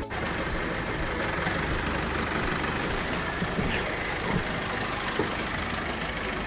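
A GAZelle Next light box truck's engine running steadily close by.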